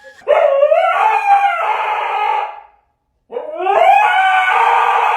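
A dog howling: two long howls, each rising in pitch at the start and then held, with a short break between them.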